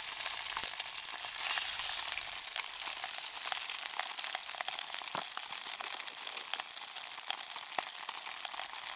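Spam slices and an egg frying in oil in a non-stick camping pan: a steady sizzle dotted with sharp pops and crackles.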